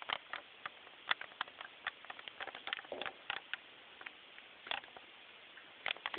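Black Labrador puppy chewing and mouthing a garden hose: irregular sharp clicks and taps, several a second at times.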